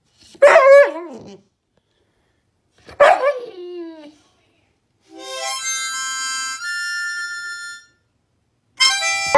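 A dog gives two short howls, each sliding down in pitch. A harmonica then plays held chords for about three seconds, and a short harmonica chord comes near the end.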